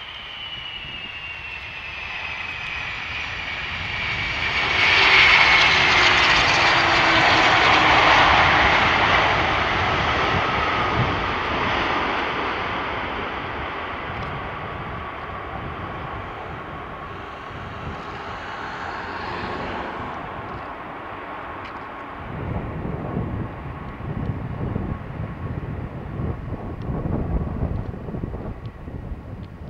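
Boeing 747-400 jet engines on a landing pass, their whine falling steadily in pitch as the airliner goes by, loudest a few seconds in. In the last third, after touchdown, a deeper, uneven rumble takes over as it rolls out along the runway.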